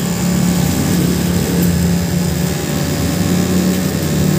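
Brisk spark plug on an ignition test rig, sparking rapidly across its gap in a steady buzzing crackle. It is driven by a standalone ECU at an engine speed of about 4,500 RPM.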